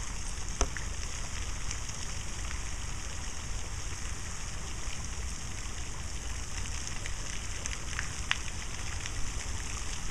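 Steady outdoor background noise: a low, uneven rumble with a high hiss over it and a few faint clicks, the clearest about half a second in and about eight seconds in.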